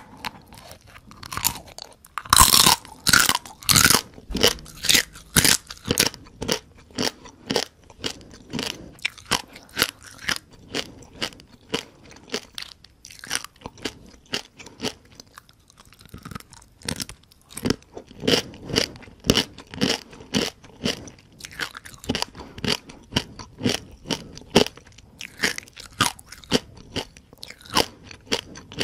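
Close-miked crunching and chewing of whole crispy fried rice-field crabs, the shells cracking between the teeth. The loudest bites come a few seconds in, followed by a steady run of chewing crunches.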